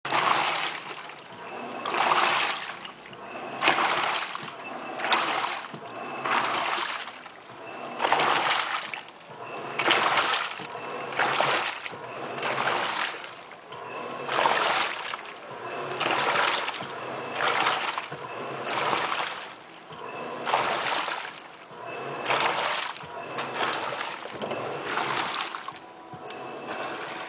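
Tatung 14 kg stainless-steel washing machine washing: water churning and splashing in the tub, surging in a regular rhythm about every second and a half as the wash motion reverses.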